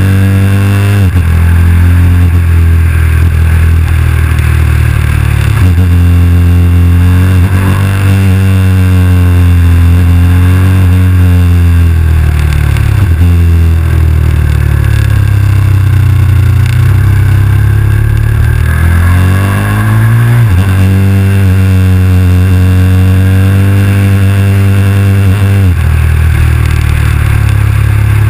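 KTM 990 SMR's V-twin engine heard from on the bike under way, the revs climbing and then dropping sharply at each of about five upshifts, with a slower fall and climb about halfway through as the rider eases off and pulls away again. Steady wind rush over the whole.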